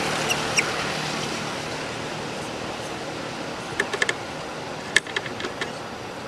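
Steady noise of a passing vehicle dying away, with a few short sharp clicks scattered through, the loudest about five seconds in.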